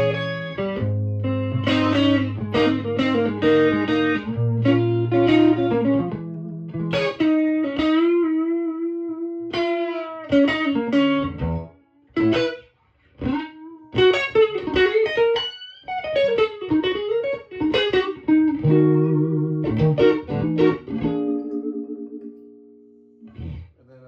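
Electric guitar on its neck pickup played through a Victoria 35310 tube amp, a clone of the Fender tweed Bandmaster with three 10-inch Jensen P10R speakers. Strummed chords for about the first seven seconds, then single-note lines with bent and wavering notes, trailing off near the end.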